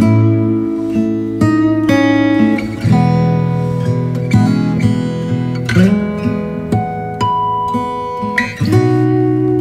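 Background music: an acoustic guitar playing a melody over sustained chords.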